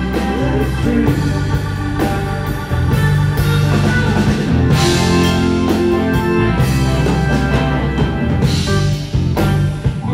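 Live rock band playing: electric guitar over bass, drums and organ, with a few short breaks in the last seconds.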